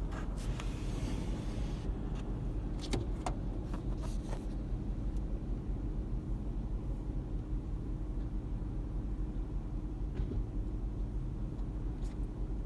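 Car idling, a steady low hum heard from inside the cabin, with a few light taps and clicks in the first few seconds and once more near the end.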